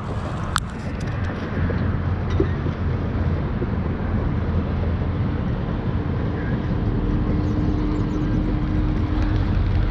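Wind rumbling on the microphone, with a steady low engine drone that comes in about halfway through and holds, and a single sharp click about half a second in.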